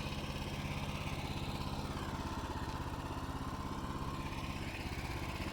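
Wood-Mizer LT15START portable sawmill's engine running steadily at an even speed, with no cut being made.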